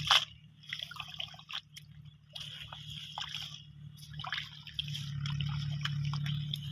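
Bare hands squelching and splashing through soft wet mud and shallow water, with scattered drips and wet clicks, as they feel for a fish hidden in the mud. A steady low hum runs underneath and grows louder over the last two seconds.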